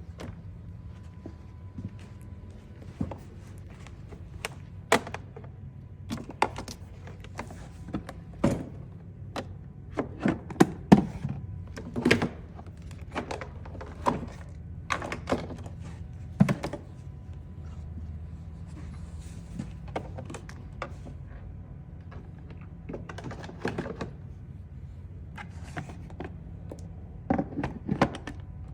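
Irregular clicks, knocks and thunks of hand tools and parts being handled during a motor replacement, over a steady low hum.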